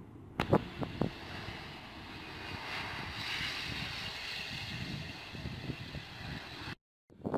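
Distant Boeing 777F turbofan engines at takeoff power during the takeoff roll: a steady rumble with a broad hiss that swells about three seconds in, with wind on the microphone and a few thumps near the start. The sound cuts off abruptly near the end.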